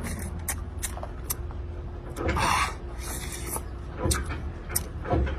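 Someone eating a large prawn, sucking at the head and chewing, with scattered clicks of shell. Two longer rasping stretches come about halfway through.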